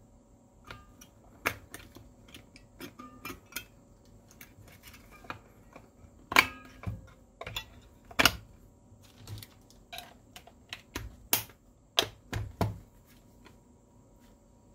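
Irregular plastic clicks and light knocks of AA batteries being pressed into a handheld multimeter's battery compartment and the compartment cover being fitted back on.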